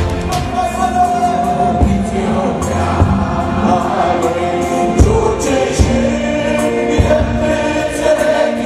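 A gospel choir and lead singer performing a worship song over a band, with held sung notes and drum strikes about once a second.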